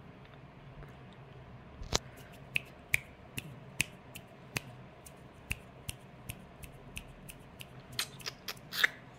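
A series of sharp, irregular clicks, about two a second, starting about two seconds in and coming closer together near the end.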